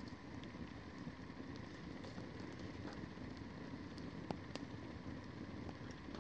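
Wood campfire burning: a steady low rush of flames with irregular sharp crackles and pops, one louder pop about four seconds in.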